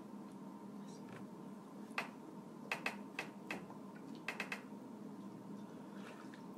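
Plastic water bottle handled and drunk from: a scattering of short, light clicks and crinkles of the plastic, over a faint steady hum.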